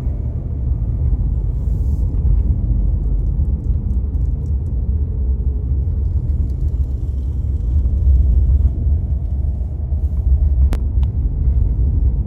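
A loud, steady low rumble with little high-pitched content.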